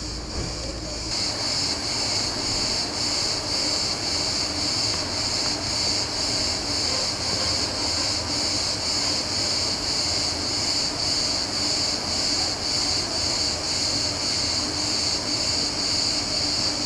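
Chorus of cicadas buzzing steadily with a regular pulsing, growing louder about a second in.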